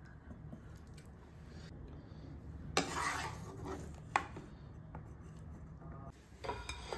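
Slotted spoon scraping and knocking against a wok while potato patties are scooped out of their cooking water: a brief scrape about three seconds in and a sharp knock just after four seconds, over a low steady hum.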